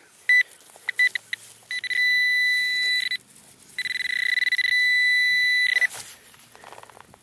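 Metal-detecting pinpointer probing a dug hole, sounding one high electronic tone: a few short beeps, then two long steady tones of about a second and a half and about two seconds as it sits over the target, a lead Civil War bullet.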